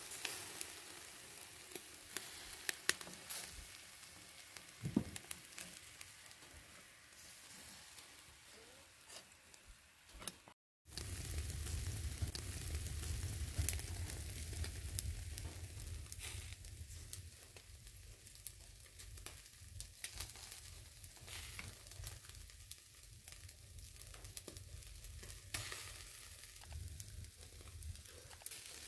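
Chicken kebabs on metal skewers sizzling over hot charcoal, with scattered sharp crackles and pops. The sound cuts out for a moment about a third of the way in, then continues with a deeper rumble underneath.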